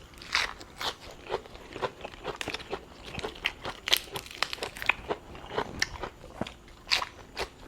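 A person chewing and crunching food close to the microphone: irregular wet clicks and crunches.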